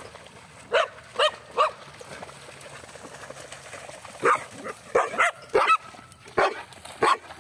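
Dog barking in play: three quick barks about a second in, then a faster run of sharp barks through the second half.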